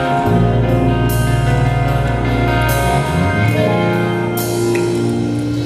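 Rock band playing live: electric guitars, bass and drum kit on held chords, with cymbal crashes twice and a chord change about three seconds in.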